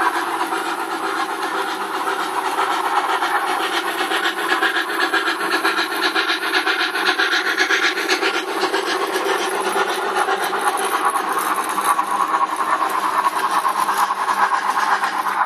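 HO scale MTH Southern Pacific Daylight model train running past close by: the steam locomotive and its passenger cars make a steady rushing clatter, full of fast fine ticking.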